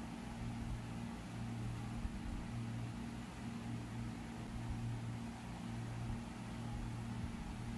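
Steady low mechanical hum over a faint even hiss.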